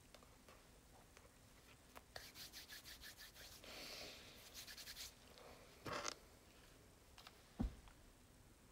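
Faint handling noise of hands and clothing moving close to the microphone: soft rubbing and scratching with runs of small clicks, a brief rustle, and one soft knock shortly before the end.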